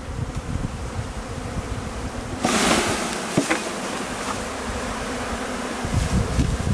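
Honeybee swarm buzzing as it is shaken off a leafy branch into a wooden hive box. About two and a half seconds in comes a loud rush of rustling leaves as the swarm drops, with a sharp knock soon after.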